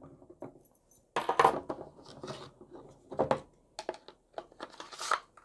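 Clacks and knocks of a two-part plastic lever-type butterfly-valve lockout device being handled and slid apart to take it off the valve lever, with padlock handling. The loudest knock comes about a second in, and a few more follow.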